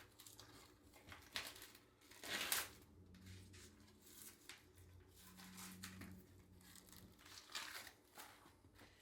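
Meat packaging crinkling and tearing as chuck eye roasts are unwrapped by hand, in irregular faint rustles with the loudest about two and a half seconds in.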